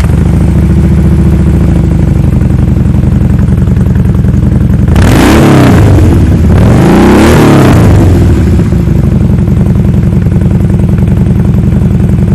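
Harley-Davidson Wide Glide's V-twin idling through Firebrand Loose Cannon slip-on mufflers with perforated-core baffles wrapped in stainless wool and fiberglass, giving a deep exhaust note. It is revved twice in the middle, each rev rising and falling back to idle.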